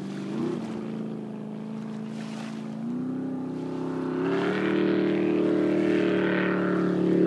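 Jet boat engine running, rising in pitch in two steps about three and four and a half seconds in and growing louder toward the end.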